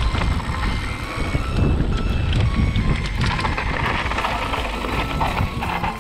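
Wind buffeting a GoPro microphone and mountain bike tyres rolling over a gravel trail, with a steady low rumble. From about three seconds in, a louder gravelly hiss comes in as the bike slows toward the stop at the trail's end.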